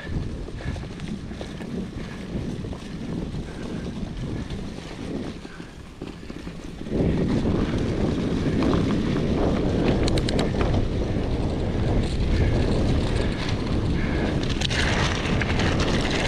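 Wind buffeting an action camera's microphone while a Cube Stereo One22 mountain bike rolls along, with its tyres rumbling. The noise steps up sharply and stays much louder from about seven seconds in.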